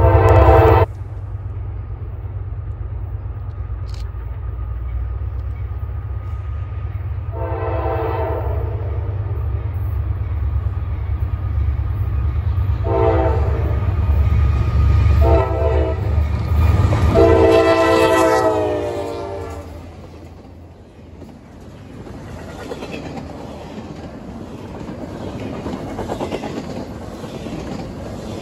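Norfolk Southern diesel locomotive approaching with a low engine rumble, sounding its horn in four blasts (long, long, short, long), the signal for a grade crossing. Near the end the train's double-stack container cars roll past with rising wheel noise.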